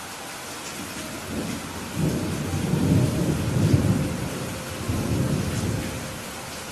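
Steady rain hiss with a long roll of thunder rumbling in about a second in. The thunder swells, eases, swells again and dies away near the end.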